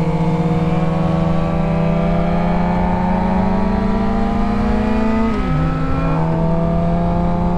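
Sportbike engine pulling through a gear, its pitch slowly rising, then dropping on an upshift about five seconds in and climbing again, with wind rushing past.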